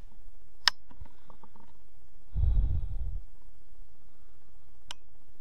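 Handling noise picked up by a scope-mounted camera on an air rifle, with a steady hiss throughout. A sharp click comes under a second in, then a few faint ticks, a brief low rumble around the middle, and another sharp click near the end.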